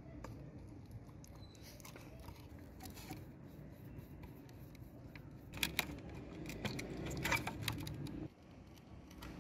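A small screwdriver works out the screw of a green plastic wheel in a toy tape recorder's plastic casing, with light ticks, then a couple of sharp clicks about halfway through and a run of clicks and rattles as the screw and wheel come loose. A steady low rumble lies underneath.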